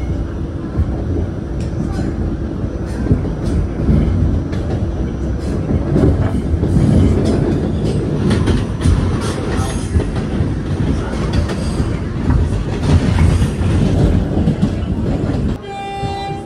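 R46 subway train running on the tracks, heard from inside the car: a steady rumble of wheels on rail with clickety-clack from the rail joints, growing louder in the middle as another train passes close on the next track. Near the end the rumble drops suddenly and a horn sounds.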